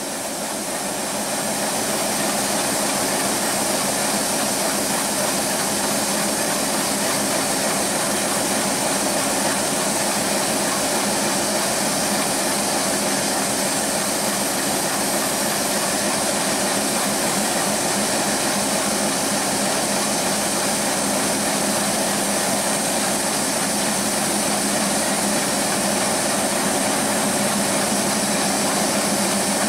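Broad-gauge diesel locomotive engines running steadily, a continuous engine hum with hiss on top, as a diesel-hauled passenger train pulls slowly into the station beside a standing train whose locomotive is idling. The sound swells over the first couple of seconds, then holds level.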